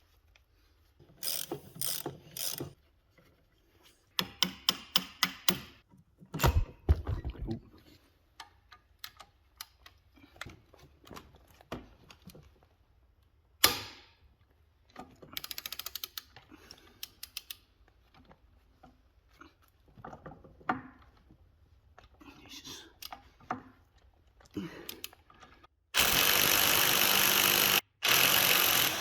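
Hand-tool work on a car's rear axle: a ratchet clicking in quick runs among metal clinks and knocks, then a power tool running loudly and steadily for the last few seconds.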